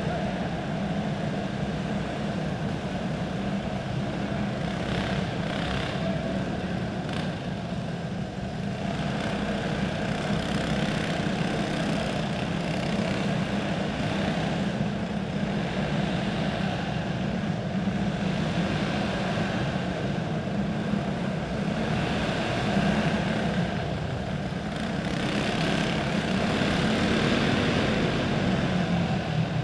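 A pack of dirt-track racing karts with single-cylinder four-stroke clone engines running at speed. Their engines make a steady buzzing drone that rises and falls as the karts go around, swelling louder near the end.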